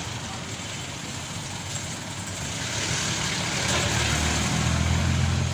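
A motor vehicle engine running nearby, its low hum growing louder in the second half, with a hiss swelling and fading around the middle.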